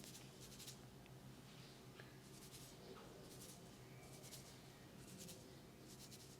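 Faint swishing strokes of hands rubbing during a massage, about one stroke a second, over a low steady hum.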